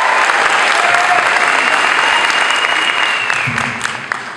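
Audience applauding, dying down over the last second or so.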